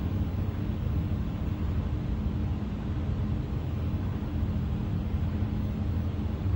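Mold laser welding machine running, a steady low hum with a few steady tones in it.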